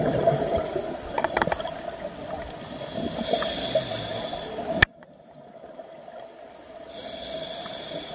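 Underwater sound of a scuba diver's breathing and bubbles, heard over a steady hum. A hiss of breath comes twice, the first ending in a sharp click about five seconds in, after which it goes much quieter for about two seconds.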